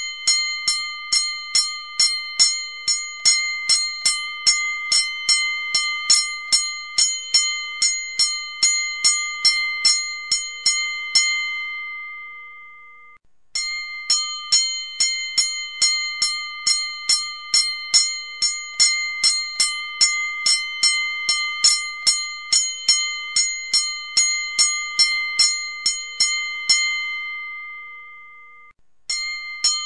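Boxing bell struck rapidly and evenly, about three strikes a second, for around eleven seconds, then left to ring out and fade. The run of strikes starts again at once, runs about thirteen seconds, fades again, and starts a third time near the end.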